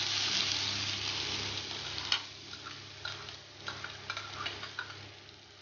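Chopped onion dropped into hot oil in a kadai, sizzling loudly at first and dying down to a softer crackle. Scattered light clicks and taps are heard over it in the second half.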